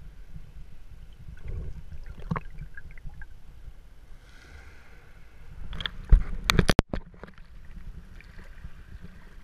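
Shallow seawater heard through a GoPro Hero3's underwater housing: a steady low rumble with a few faint clicks. About six seconds in comes a quick run of loud knocks and splashing as the camera is lifted out through the surface, followed by steady water noise above the surface.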